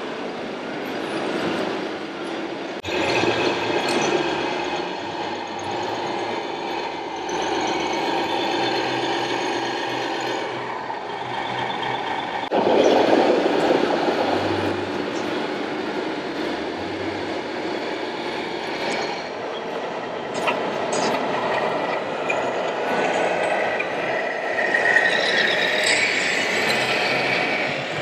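Busy exhibition-hall noise: radio-controlled model trucks driving on an indoor layout, with a steady mechanical hum and crowd hubbub, changing abruptly a couple of times.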